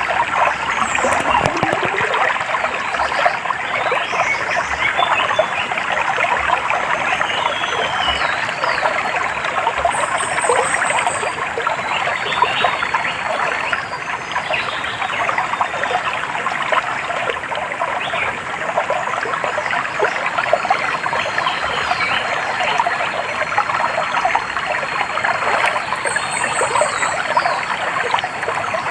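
A small stream trickling and splashing steadily over stones. A few short, high bird chirps come through above the water, about ten seconds in and again near the end.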